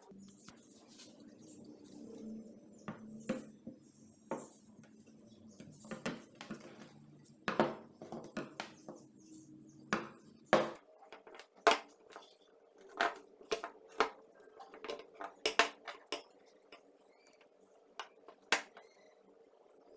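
Irregular knocks, taps and light clatter of a wooden-handled axe being handled and turned on a hard tabletop while a strip of rubber inner tube is wound around the grip. The knocks come sparsely at first and get sharper and more frequent in the second half.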